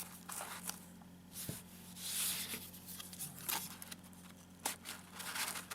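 Wallet being handled as a plastic Victorinox Swiss Card is slid into one of its pockets: irregular rustling and scraping, with a few light clicks.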